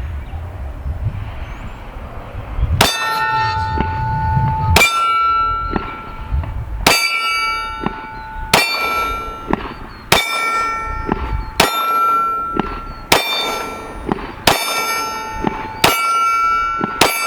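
Glock 20 10mm pistol firing full metal jacket rounds at a steel target: about ten shots, one every one and a half to two seconds, starting about three seconds in. Each hit sets the steel plate ringing with a clear metallic tone.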